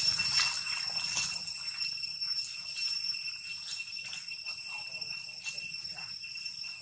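Steady, high-pitched insect drone, with faint rustling in the leaves.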